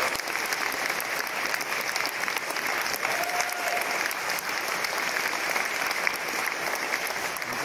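Audience applauding at the end of a speech, a dense steady clapping that begins to fade near the end, with one short call from someone in the crowd about three seconds in.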